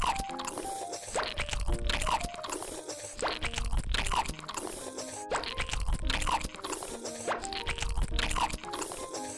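Background music with a bouncy repeating pattern, over crunchy biting and chewing as Maggi noodles are eaten.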